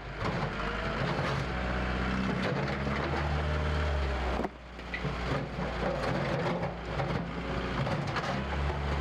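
A large engine running steadily, with scattered knocks and clatter over it. The sound breaks off abruptly about halfway through, then a similar engine sound resumes.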